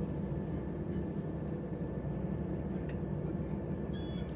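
Class 172 diesel multiple unit idling at the platform, a steady low engine rumble. A short high beep sounds near the end.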